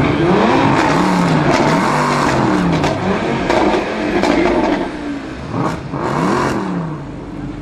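Audi RS3 Sportback 8V's turbocharged five-cylinder engine revved hard again and again through an Armytrix decatted valvetronic exhaust, its pitch rising and falling several times, with a few sharp cracks between revs.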